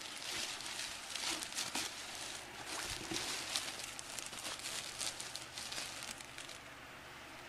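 Clear plastic bag around a pillow crinkling as it is handled, a busy run of crackles that stops near the end.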